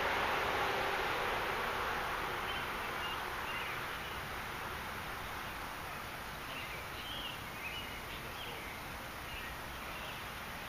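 Outdoor background noise: a steady rushing hiss that eases off over the first few seconds, with faint, scattered bird chirps.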